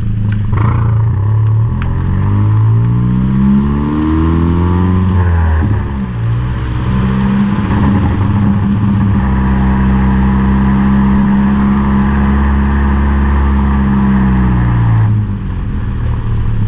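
Exhaust note at the tailpipe of a Chevy Sonic RS 1.4-litre turbocharged four-cylinder with the muffler deleted (stock resonator and tip kept), driven at low speed. The revs climb for about five seconds, drop back sharply, then hold at a steady low cruise drone until the throttle eases off near the end.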